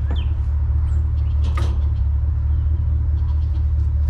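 Vehicle engine running with a steady low hum, and one faint knock about one and a half seconds in.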